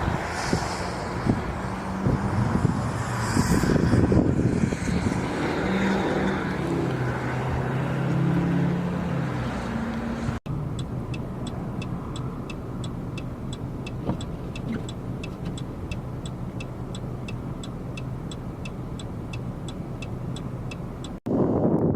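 Road vehicles running in snow: engine hum over steady tyre and road noise. After a cut about ten seconds in, steady vehicle noise continues with a light, even ticking about two or three times a second.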